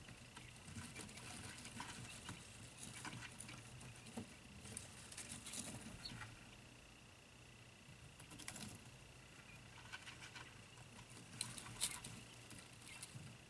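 Faint scratching and light tapping of day-old quail chicks moving about on their brooder floor, with a few sharper clicks near the end. A steady high-pitched whine and a low hum run underneath.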